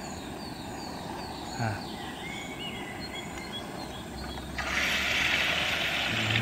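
Egg-and-noodle batter poured into hot oil in a small camping pan, sizzling; the sizzle starts suddenly about four and a half seconds in. Before it, faint bird chirps.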